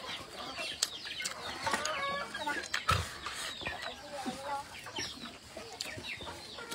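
Chickens clucking on and off, with a few sharp clicks in between, the loudest about three seconds in.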